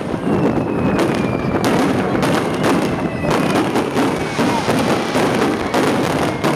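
Fireworks going off: repeated bangs and crackles of bursting shells, with two faint high whistles.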